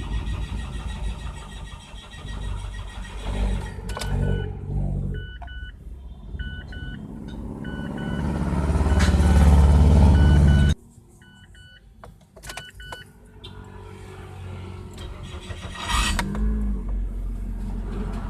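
Mazda 3 1.6 hard starting: the starter cranks for several seconds, getting louder, then cuts off abruptly without the engine catching, while a dashboard chime beeps. About sixteen seconds in, a second attempt catches and the engine keeps running. The owner puts the hard start down to a clogged fuel pump strainer and fuel filter.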